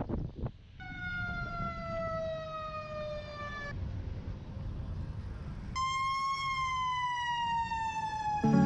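Fire engine siren wailing in two long sweeps, each sliding slowly down in pitch, over a low traffic rumble. Music comes in right at the end.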